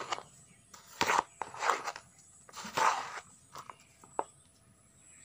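Small hand trowel scraping and stirring a gritty mix of soil, cow-dung manure and sand in a shallow pan: four rough scrapes in the first three seconds, then two light clicks.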